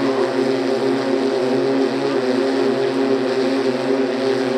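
Pivotal eVTOL aircraft's electric propellers droning steadily overhead in flight, a hum of several close, steady tones.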